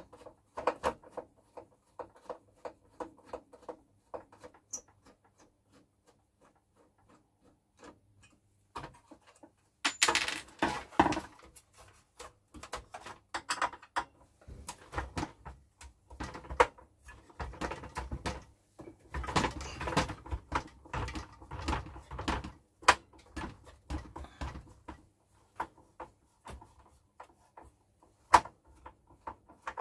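Handling noise from hands working on a CRT television chassis and its wiring: scattered clicks, taps and rustles, sparse at first and busier from about ten seconds in.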